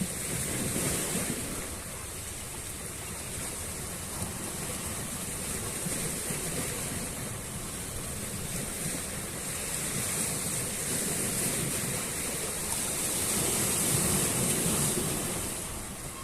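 Sea waves washing onto a shore: a continuous rushing that swells and eases slowly, loudest about a second in and again near the end.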